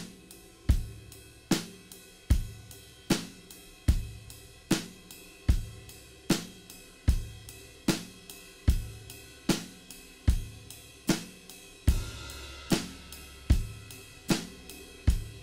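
Recorded acoustic drum kit playing back: a simple groove of ride cymbal, kick and snare. It keeps a slow, steady beat, with a stroke about every 0.8 seconds.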